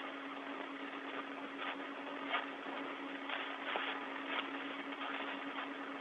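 Open space-to-ground radio channel between transmissions: a steady hiss with a constant low hum, broken by several short crackles.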